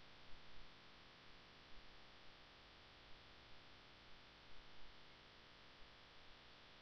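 Near silence: the faint, steady hiss of a broadcast feed's line noise.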